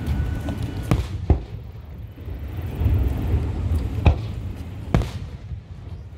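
Aerial firework shells bursting: four sharp bangs, two close together about a second in and two more about four and five seconds in, over a low continuous rumble.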